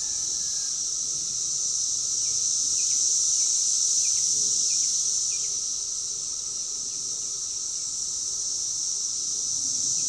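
Brood X periodical cicadas in full chorus, the males' mating song: a steady, high, shrill hum that swells slightly a few seconds in and eases off again.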